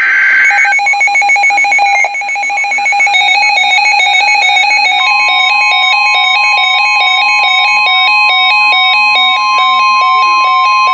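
NOAA Weather Radio alert signals. The tail of a screechy SAME data burst ends just under a second in. Electronic alert beeping follows, rapid at first and then stepping between pitches. About five seconds in, the steady single-pitch 1050 Hz warning alarm tone joins it and holds, announcing a new warning.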